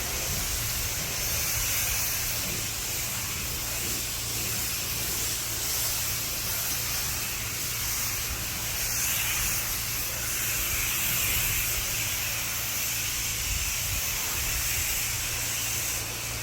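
Pressure-washer wand spraying a steady hissing jet of water, rinsing the house after its soft-wash soap treatment, with a low steady hum underneath. The spray eases off near the end.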